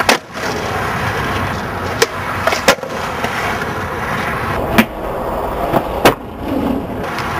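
Skateboard wheels rolling on concrete, broken by about five sharp clacks of the board popping and landing.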